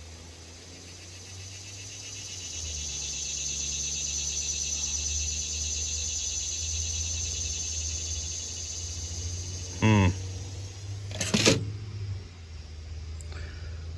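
Insects buzzing in a steady high chorus that swells in over the first few seconds, over a low steady hum. About ten seconds in there is a brief vocal sound, then a loud knock.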